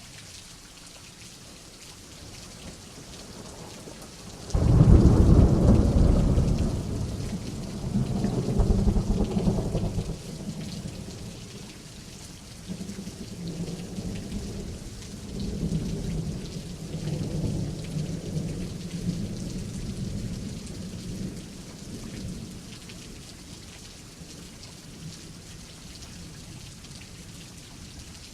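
Steady rain falling, heard by a window, with a sudden loud thunderclap about four seconds in, followed by a long low rumble of thunder that rolls on and fades out over the next fifteen seconds or so.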